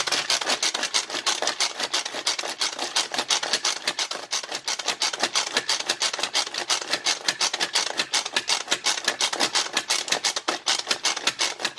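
Manual pull-cord food processor being worked: the handle pulled again and again, spinning the blades through the pesto ingredients in a fast, even rattling whir of about six strokes a second.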